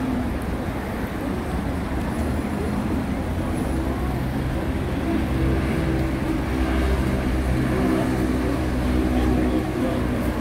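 City street traffic, with a motor vehicle's engine running close by that gets somewhat louder about halfway through.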